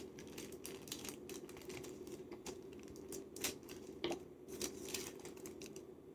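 Folded paper pieces being handled and pressed down on a wooden tabletop: quiet, irregular light taps and paper crinkles, over a faint steady hum.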